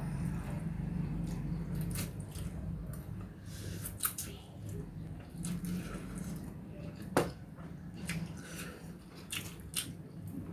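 Chewing and biting spicy Current instant noodles close to the microphone, with short wet mouth clicks now and then over a low steady hum.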